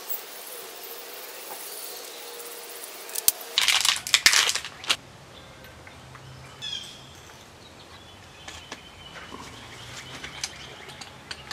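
PTFE thread seal tape pulled off its roll and wrapped around a brass fitting's threads. A faint hiss, then a burst of loud crinkling and crackling about four seconds in, followed by scattered small clicks and rustles.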